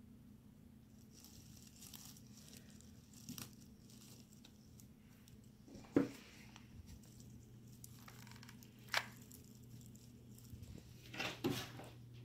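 Faint rustling and crinkling of artificial pine greenery, a pine cone and a fabric poinsettia pick being handled and pressed into place, with a few light knocks, the sharpest about six and nine seconds in and a small cluster near the end, over a low steady hum.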